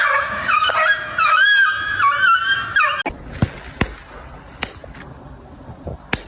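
A cat's long, wavering yowl lasting about three seconds, followed by a few sharp clicks or knocks.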